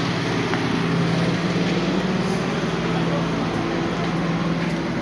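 A parked refrigerated delivery box truck running steadily: a constant low hum with an even rushing noise over it.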